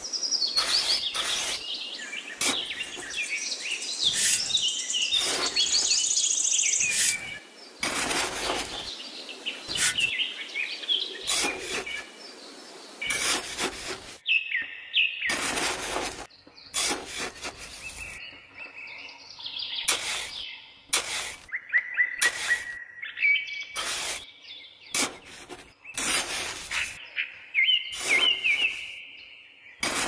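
Small birds chirping and warbling, overlaid by frequent short scrapes and crunches of a small hand trowel digging into sand, the loudest sounds in the clip.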